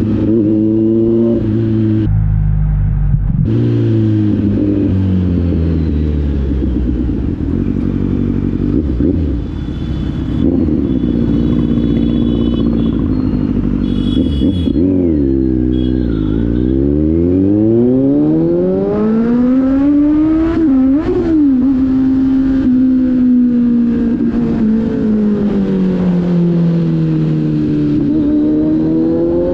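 Kawasaki Z900's inline-four engine through an aftermarket exhaust, its revs rising and falling in long sweeps as the throttle is worked. There is a deep drop and climb about halfway through, and a couple of quick throttle blips a few seconds after that.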